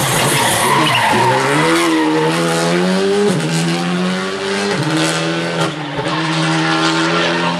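Škoda Fabia rally car's engine slowing for a bend, then accelerating hard away, its pitch climbing and dropping at two quick upshifts. A few sharp cracks near the six-second mark.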